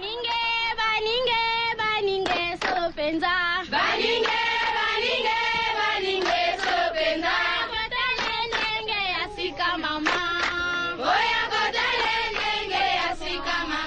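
Music with sung vocals, held, wavering notes over a beat: a talk-radio show's musical bumper between calls.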